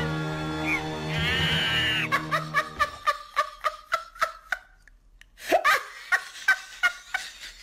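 A cartoon laughter sound effect: quick repeated 'ha-ha' bursts starting about two seconds in, breaking off briefly and then starting again. It follows a wavering sound that slides in pitch.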